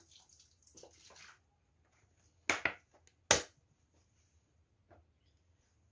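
Vinegar trickling from a glass bottle into a pot of water, faintly, for about a second and a half, then two sharp knocks a little past halfway.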